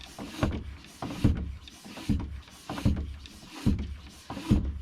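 Floor track pump being worked in steady strokes, a thump and a rush of air about every 0.8 s, inflating a tubeless mountain-bike tyre to seat its bead on the rim.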